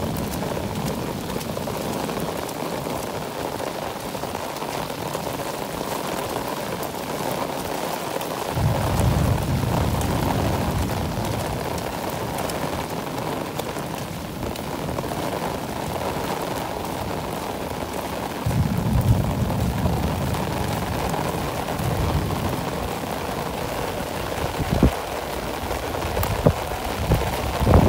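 Heavy rain pouring steadily, with two low rumbles lasting a few seconds each, about eight and eighteen seconds in.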